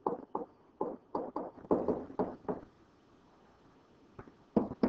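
A stylus knocking and tapping on a writing surface during handwriting: a quick run of about a dozen short taps, a pause of a second or two, then more taps near the end.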